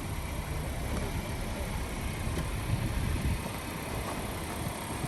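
A car running at low speed, a steady low rumble.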